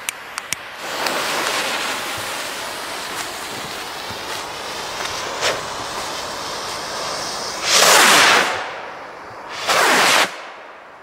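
Fuses of two Funke Goldfunken skyrockets hissing and spitting, then the two rockets launching one after the other, each with a loud rushing whoosh lasting about a second, about eight and ten seconds in.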